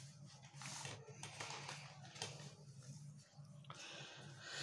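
Faint room tone with a steady low hum and a few soft clicks, then a short rustle of handling noise near the end.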